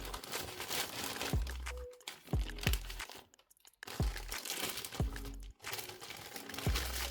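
Lo-fi hip-hop background music with a slow beat of deep kick drums and crisp hits, over a steady crinkling and rustling. Everything cuts out briefly about halfway, then the beat resumes.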